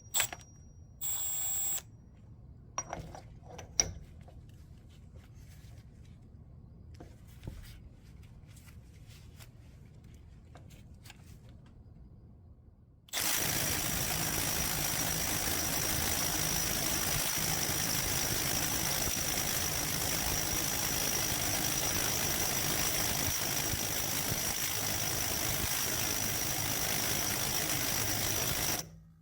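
Cordless right-angle impact wrench hammering continuously on a large nut through a 2-inch socket. It starts abruptly about halfway through, runs steadily for about fifteen seconds with a high steady whine over the rapid hammering, then stops just before the end.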